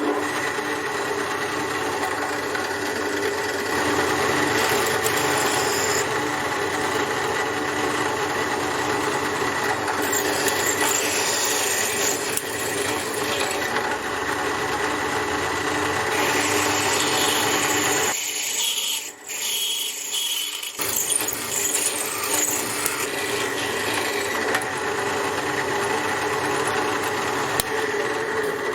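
Drill press motor running steadily while drilling 5 mm holes in hot-rolled steel plate. The low hum drops out for a couple of seconds about two-thirds of the way through, then resumes.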